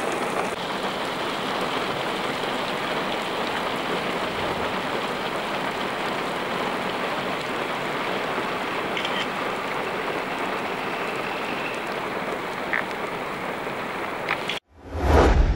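Steady heavy rain falling. It cuts off suddenly near the end, followed by a short, loud low boom.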